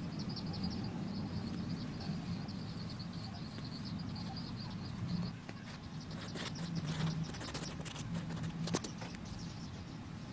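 A small bird chirping rapidly and steadily over a low background hum. The chirping stops about halfway, and short scratchy strokes, like pencil lead on paper, take its place.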